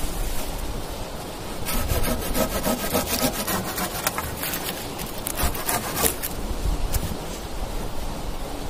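Small folding hand saw cutting through a wooden pole: a run of quick back-and-forth strokes that starts about two seconds in and stops about six seconds in, followed by a few single scrapes.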